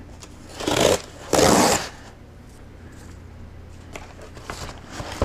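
Cardboard shipping box being handled and torn open: two short scraping, rustling bursts about a second in, then a few faint taps and clicks.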